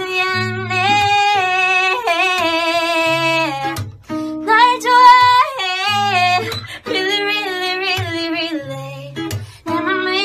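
A woman singing a song with wavering vibrato, accompanying herself on an acoustic guitar. She sings in phrases, with short breaks about four seconds in and again about seven seconds in.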